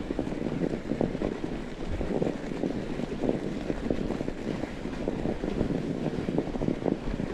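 Wind buffeting the microphone as a fat bike rides along a snowy trail, with a dense, irregular rumble from the tyres and bike over the ground.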